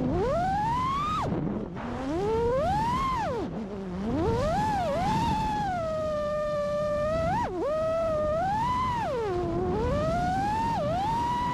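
FPV freestyle quadcopter's brushless motors and propellers whining, the pitch sweeping up and down with the throttle: sharp climbs on punch-outs, quick drops when the throttle is chopped, and a steady pitch held for about a second and a half near the middle.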